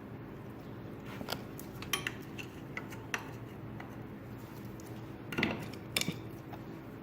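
Scattered light metallic clinks and scrapes of tools and parts as the points base is worked off the engine case of a 1978 Honda Trail 90, a handful of separate clicks with the loudest about five and a half seconds in.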